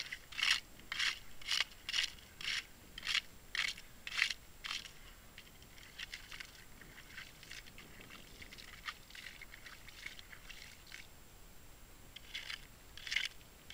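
Ice skimmer scooping and scraping slush and broken ice out of an ice-fishing hole: about ten quick scraping strokes, roughly two a second, over the first five seconds, then softer crackling, and two more strokes near the end.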